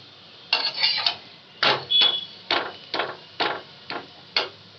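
Metal spatula pressing and scraping an egg paratha against a flat tawa to crisp it, a short rasping stroke about twice a second.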